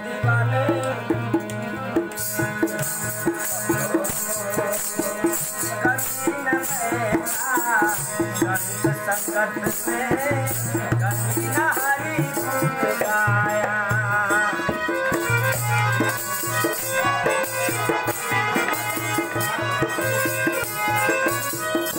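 Devotional bhajan music: a harmonium holds chords over steady dholak drum strokes, with a bright rattling, jingling percussion throughout. A wavering singing voice comes in about six seconds in.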